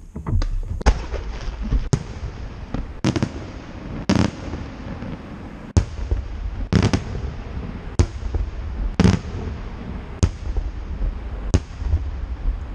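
Aerial fireworks display: shells bursting in a run of loud bangs about once a second, around ten in all, with a steady low rumble between them.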